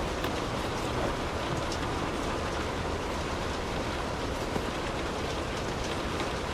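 Light rain falling on a car's roof and windows, heard from inside the car: an even hiss with faint scattered drop ticks over a steady low rumble.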